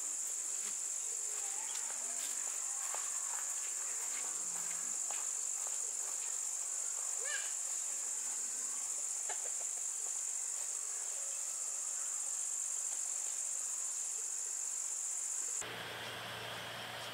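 Steady, high-pitched buzzing of an insect chorus, with faint scattered clicks and rustles; the buzzing cuts off suddenly near the end.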